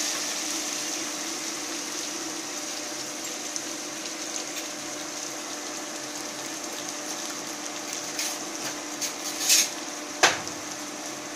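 Sliced onions sizzling in oil in a nonstick frying pan, a steady hiss over a low steady hum. Near the end the wooden spatula clicks against the pan a few times, then knocks it once sharply.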